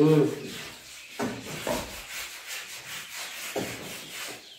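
Hands squishing and mixing rice with egg curry on steel plates: irregular soft rubbing and squelching, with fingers scraping the plate now and then.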